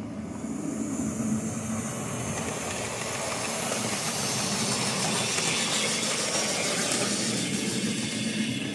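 OO gauge model train running on the track close by: a steady electric motor hum under the rumble of its wheels on the rails, growing louder over the first few seconds as it comes past.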